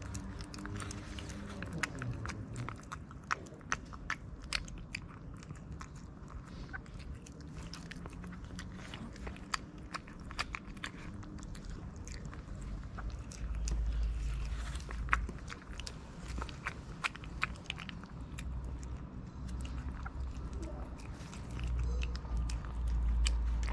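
Cat eating chunky wet food from a foil tray: quick, irregular wet chewing and smacking clicks, with a low rumble twice, midway and near the end.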